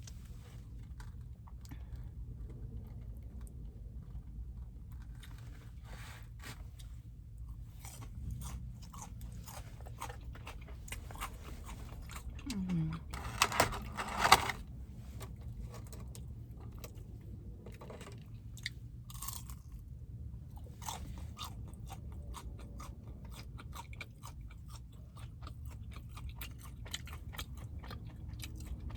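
A person chewing and biting fast food close to the microphone: many small wet mouth clicks and crunches, with a louder burst of crunching about halfway through.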